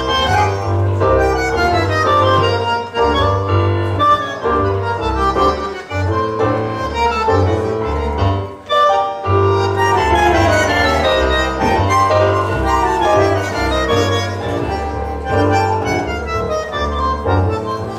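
Live Argentine tango music played by a trio, with a strong bass line under the melody; it breaks off briefly just before halfway, then picks up again.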